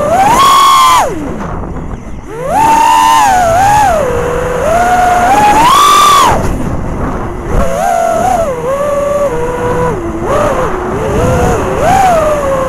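Four brushless motors (2306, 2750 kV, on 4S) of an FPV racing quadcopter whining, heard from its onboard camera; the pitch surges and drops again and again with throttle punches, highest about half a second, three seconds and six seconds in, and briefly falls away around two seconds in.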